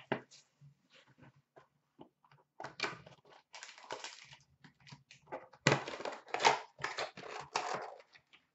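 Crinkling, rustling and tearing of packaging as a sealed hockey card box is opened and its foil-wrapped pack pulled out; irregular, sparse at first and louder in the second half.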